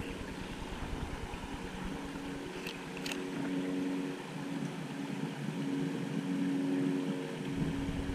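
A steady motor hum, with two short clicks about three seconds in.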